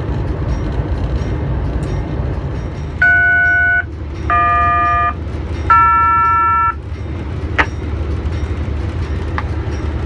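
Locomotive air horn sounding three blasts of about a second each, each a chord of several notes, over the steady low rumble of the locomotive heard from inside the cab. A single sharp click comes shortly after the last blast.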